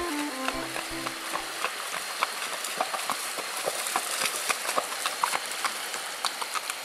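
Horse's hooves splashing through a shallow creek crossing at a walk: a quick, irregular run of splashes over the steady rush of the water. A fiddle tune dies away in the first second and a half.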